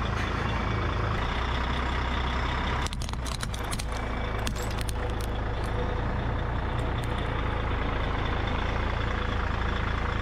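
Truck engine running steadily at low revs, with a cluster of sharp cracks and crunches about three seconds in as Christmas baubles break under the tyre, and a few fainter ticks of shards a little later.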